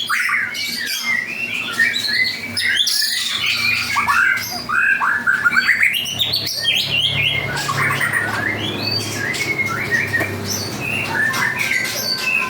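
White-rumped shama (murai batu) singing continuously: a rapid, varied run of whistled notes that glide up and down, mixed with short sharp chattering calls.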